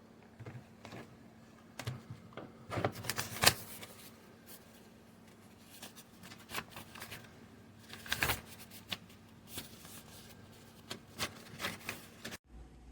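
Hands handling small plastic objects: irregular clicks, taps and rustling, with a sharper click about three and a half seconds in and another cluster of clicks near the eight-second mark. The sound cuts off abruptly near the end.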